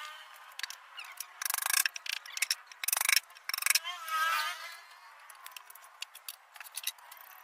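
Irregular knocks, clicks and clatter from a plywood board and hand tools being handled on a table saw's table, including a hammer put down on the board. There is a short rattle about one and a half seconds in and louder knocks around three seconds.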